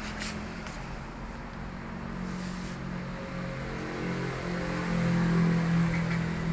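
A low engine hum that grows louder and rises slightly in pitch about four seconds in.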